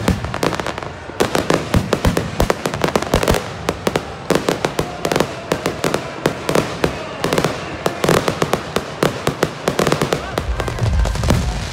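Aerial fireworks crackling and popping: a dense, rapid run of sharp cracks from bursting shells, with a few louder bangs among them.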